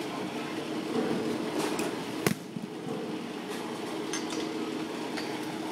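A baseball bat strikes a pitched ball: a single sharp crack a little over two seconds in, over a steady low hum, with a few faint clicks around it.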